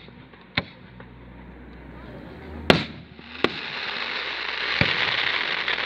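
Fireworks shells bursting in the air: a few sharp bangs, the loudest about three seconds in. After that a hiss with many small cracks rises and holds to the end.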